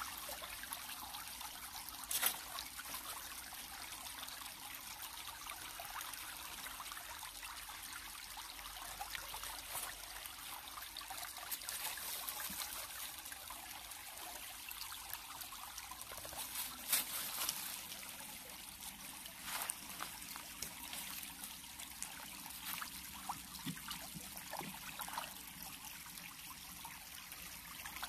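Shallow rocky stream trickling steadily over stones. A few brief, sharper sounds stand out, the loudest about two seconds in and again around the middle.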